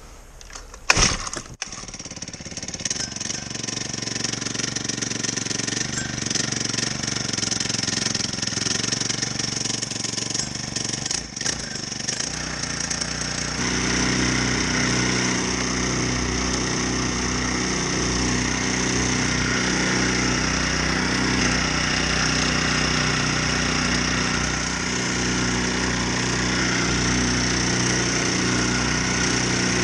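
Small four-stroke kayak motor, a Honda GX35, starting with a loud crack about a second in and running at low speed. About thirteen seconds in it is throttled up and then runs steadily at a higher, louder pitch as the kayak gets under way.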